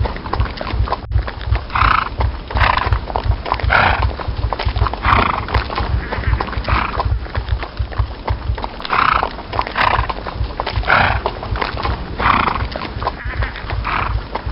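A horse galloping, with a fast, continuous drumming of hooves. Short, loud horse calls recur about once a second over the hoofbeats.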